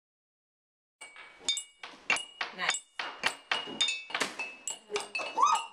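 Glass jars filled with different amounts of water being tapped with sticks, starting about a second in: quick strikes, two or three a second, each ringing at its own pitch, which the water level in each jar sets.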